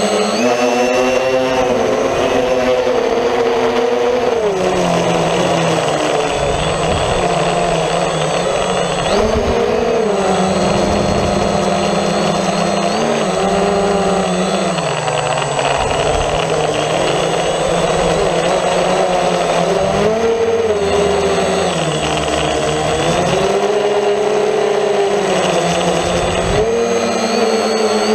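Home-built multirotor drone's electric motors and propellers buzzing, heard from the camera on board. The pitch climbs steeply in the first second, then rises and falls again and again as the drone flies.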